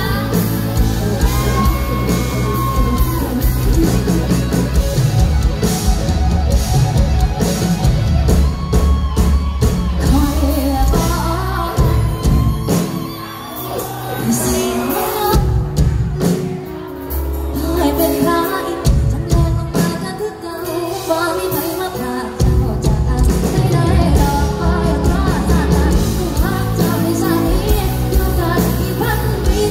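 Live pop band with a female lead singer singing through the PA over keyboard, bass and drums, and a backing singer. The bass and drums drop back for a few seconds twice around the middle.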